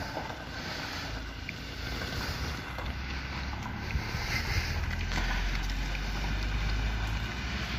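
Wind buffeting the microphone over the low rumble of an ambulance van's engine as it pulls away; the rumble grows heavier about two-thirds of the way through.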